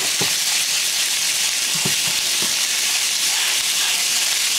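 Ground Italian sausage sizzling steadily as it browns in a frying pan with a little bacon grease, with a few short light scrapes from the utensil breaking up the meat.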